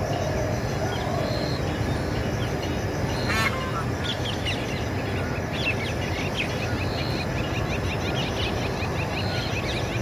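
Birds calling over a steady low background rumble: a single short, harsh screech about three and a half seconds in, then a run of quick high chirps, with a lower call near the start.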